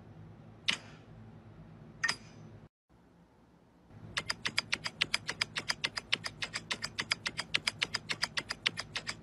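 Two single sharp clicks over a low hum, then a fast, even run of sharp clicks at about eight a second.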